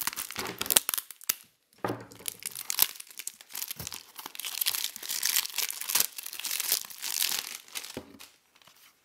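Plastic wrapping on a CD jewel case crinkling and tearing as it is pulled off by hand. The crackling runs in irregular bursts, with a short pause about a second and a half in.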